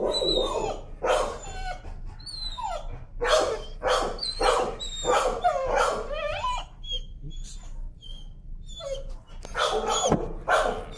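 A dog screaming and yelping in protest, a quick run of high-pitched cries with falling pitch, one or two a second. They thin out past the middle and pick up again near the end. It is the distress of a timid dog afraid of leash pressure as the leash and collar are handled.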